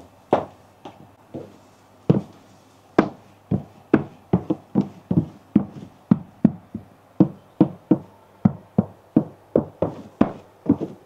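Footsteps of cream lace-up shoes with thick brown soles stepping on a hard pedestal: a few scattered taps, then from about two seconds in a steady run of sharp knocks, about two a second, often in close heel-and-toe pairs.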